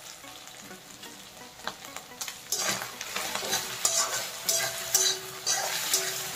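A wooden spatula stirs duck meat, potatoes and freshly added ground spices frying in oil in a kadai, over a low sizzle. The stirring begins about two and a half seconds in, with quick, repeated scraping strokes against the pan.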